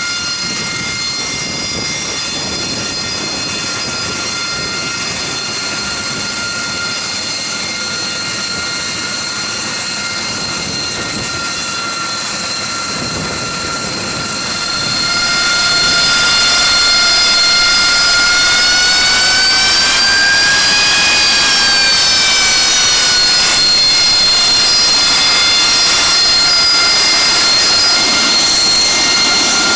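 AV-8B Harrier II's Rolls-Royce Pegasus turbofan running on the ground: a steady high whine made of several tones. About halfway through it gets louder and hissier, and a few seconds later its pitch rises and settles back down.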